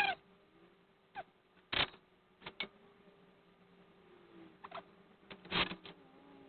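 Scattered clicks and light knocks of small metal parts and tools being handled during a carburettor teardown, about eight in all, the first with a brief ring, over a faint steady hum.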